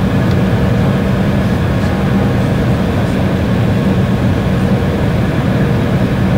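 Cabin noise of an Embraer 170 taxiing, heard from inside over the wing: its GE CF34-8E turbofans running at low taxi power as a steady drone with a low hum.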